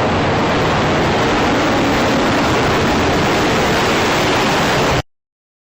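A loud, steady rushing roar of noise with no pitch in it, which cuts off abruptly about five seconds in.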